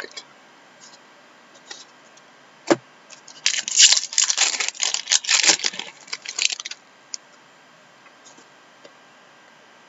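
Crinkling and tearing of a trading-card pack wrapper being handled and opened, a crackly burst lasting about three seconds, from about three and a half seconds in. A single sharp click comes just before it.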